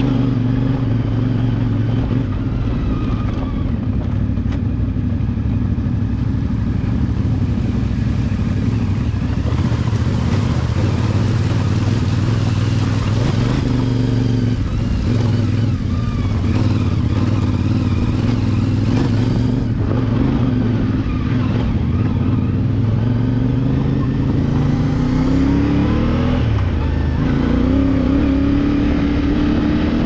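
CFMOTO 450MT motorcycle's parallel-twin engine running steadily under way on a trail ride. Near the end its pitch climbs a few times as it accelerates.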